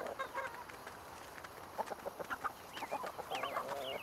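Chickens clucking in short, scattered calls, with a longer drawn-out call near the end.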